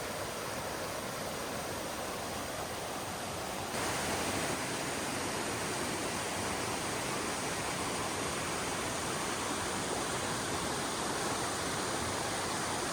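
Steady rush of flowing river water, a little louder from about four seconds in.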